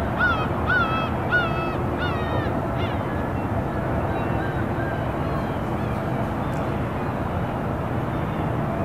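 A bird calling about half a dozen times in quick succession, roughly two calls a second, each a short, clear note that falls at the end. Fainter calls trail off a few seconds in, over a steady low harbour and road-traffic rumble.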